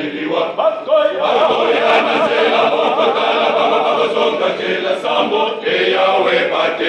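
A male choir of boys and young men singing a Christian song together, the voices coming in about a second in and continuing steadily.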